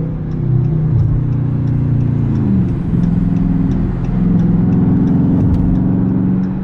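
Car engine running while driving, its pitch dropping about two and a half seconds in as it changes gear, then rising again as it accelerates.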